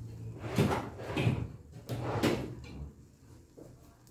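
Kitchen drawer being opened and rummaged in: a few sudden knocks and rattles, three strong ones in the first two and a half seconds and a couple of fainter ones after.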